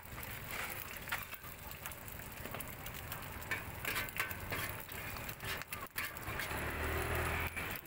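Metal spatula scraping and clicking against a large steel wok as noodles are pushed around, over the sizzle of frying food. A low rumble comes in near the end.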